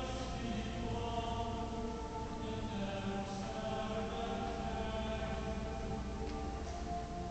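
Slow choral chant: several voices together holding long notes that change slowly.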